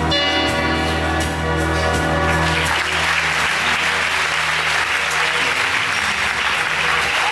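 Performance music with sustained chords and a steady bass; a little under three seconds in, audience applause breaks out and continues over the music as it thins out.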